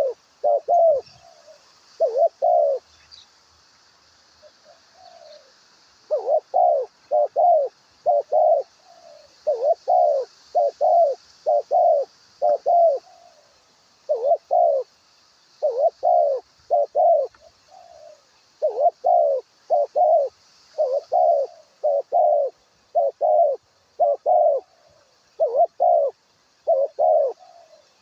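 A dove cooing over and over in short phrases of two to four low notes, with a brief lull a few seconds in, over a steady faint high hiss.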